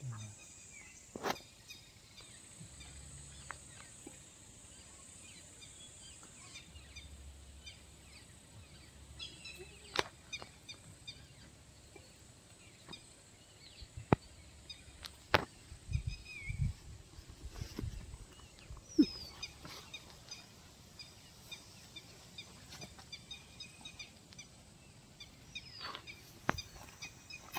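Outdoor pond-side ambience with small birds chirping and calling now and then, broken by a few sharp clicks and knocks and a short run of low thumps a little past halfway.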